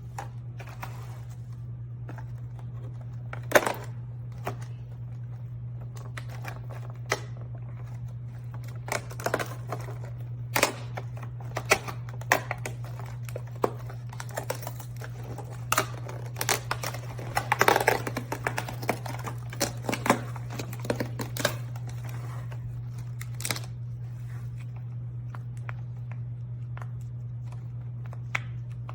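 Hands working a fidget toy and its packaging: scattered sharp clicks and taps, busiest in the middle, with a few crinkles, over a steady low hum.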